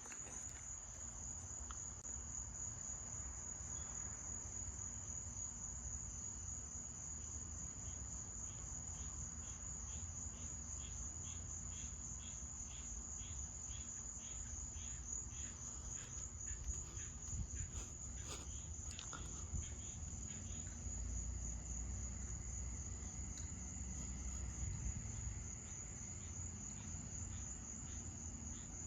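Crickets trilling steadily in a continuous high, fast-pulsing chorus. From about a quarter of the way in to past the middle, a slower series of chirps comes about twice a second, and a faint low rumble runs underneath.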